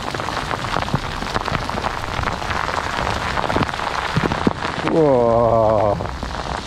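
Hail pelting down, hailstones striking close by as a dense patter full of sharp ticks. About five seconds in, a man calls out a long, wavering "whoa".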